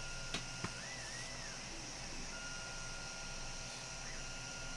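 Two quick snips of scissors cutting 3D-printer filament, close together near the start, over a low steady hum and a thin high tone that stops and comes back.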